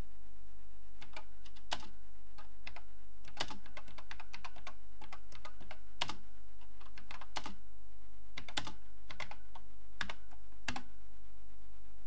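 Keys of an Acorn Electron computer keyboard being typed, irregular clicks of single keystrokes over a steady electrical hum.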